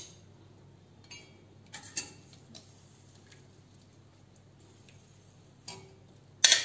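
A few light clinks of a utensil against a stainless steel pot as boiled chicken is lifted out of the stock, ending with one sharp, louder clank near the end.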